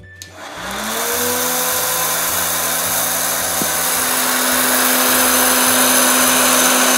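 Hot-air popcorn maker switched on with a click. Its fan motor spins up over about a second with a rising hum, then runs steadily with a loud whirring blow. The kernels inside are being heated and have not yet started to pop.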